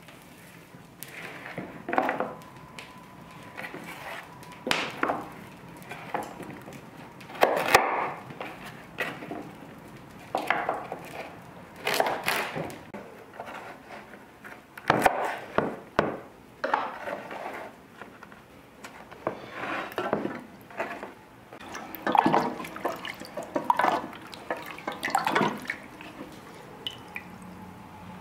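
Kitchen knife working fresh carrots on a wooden cutting board: a series of irregular scrapes and knocks, one every second or two.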